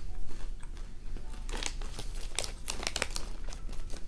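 Gourmet popcorn being chewed with the mouth closed: irregular crisp crunching crackles that come thicker in the second half.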